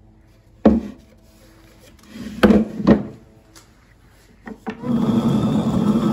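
A few sharp knocks, then, about five seconds in, the upper millstone of a rotary hand quern starts turning on the lower stone by its wooden handle: a steady stone-on-stone grinding noise as the grain is milled.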